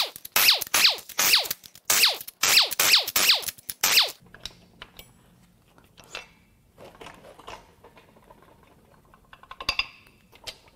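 A hand wrench or ratchet loosening the main bearing cap bolts on a Toyota 2AR-FE engine block: a quick run of sharp metallic clicks with a short ring, about two or three a second for roughly four seconds. After that come fainter clinks of steel on the aluminium block, with one louder clank near the end.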